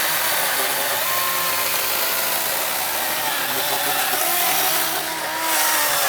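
Kobalt 24-volt cordless electric chainsaw cutting through a tree trunk. Its motor whine wavers and sags in pitch as the chain loads up in the wood.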